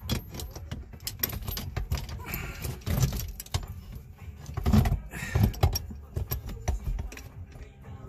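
Socket ratchet clicking and metal shifter-box parts clinking in irregular bursts as the shifter box's mounting bolts are worked by hand.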